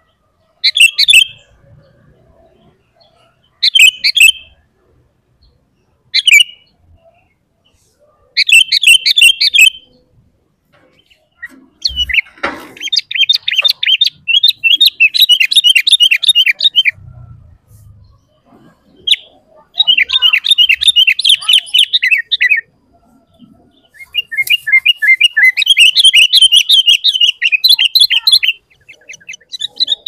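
Sooty-headed bulbul (kutilang) singing loudly: four short bubbly phrases a few seconds apart, then three long runs of rapid chattering notes in the second half.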